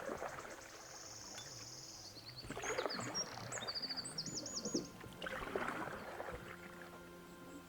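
Canoe paddle strokes pulling through water, one about every two and a half seconds, with the swish and drip of each stroke. A bird sings high chirps and trills through the first half.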